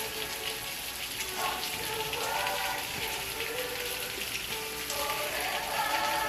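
Steady rain falling, a dense patter of drops, with soft sustained music swelling and fading beneath it.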